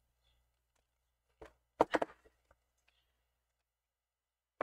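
A few sharp clicks and knocks of hard plastic, bunched together about two seconds in, as the opened plastic handle housing of a Zhiyun Smooth-Q phone gimbal is handled during battery reassembly.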